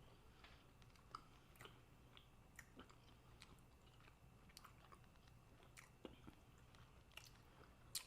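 Faint chewing of a snack: scattered small crunches and mouth clicks over a low steady hum, with one sharper click near the end.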